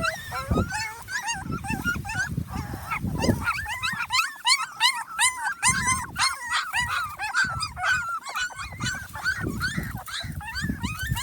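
Young puppies whimpering and squealing: many short, high-pitched cries that rise and fall, overlapping one another without pause, over some low thuds.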